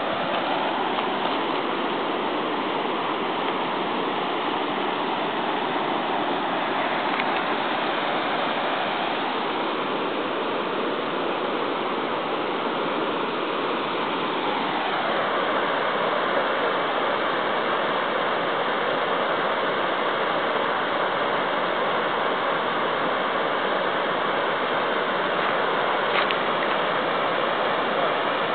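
River water rushing steadily over rocks: a constant, even hiss of flowing current.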